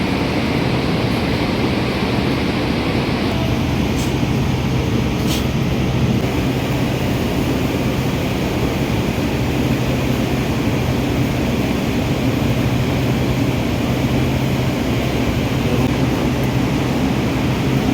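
Ford EcoSport engine running at a steady idle with a misfire, which the mechanic traces to cylinder number 3. Two short clicks come about four and five seconds in.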